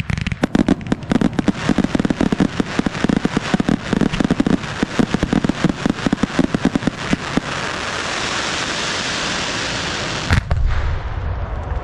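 Consumer fireworks cake launching a rapid barrage of mine and comet shots, many pops a second, for about seven seconds, then going over to a steady hiss. About ten seconds in comes one heavy boom with a low rumble after it, as the gasoline rigged with the cake goes up in a fireball.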